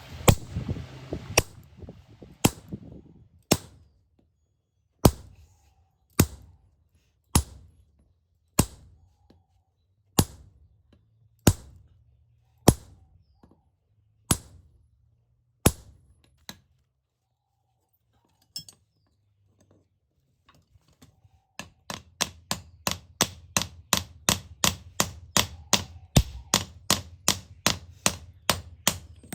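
Hammer blows on iron: slow, evenly spaced strikes about one a second, a pause of a few seconds, then a fast run of about three strikes a second near the end.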